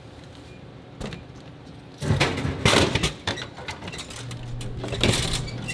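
Vending machine dispensing: about two seconds in, a burst of clattering and knocks as an item drops into the pickup bin. The machine then hums, and the bin's plastic flap clacks as it is pushed open to take the item out.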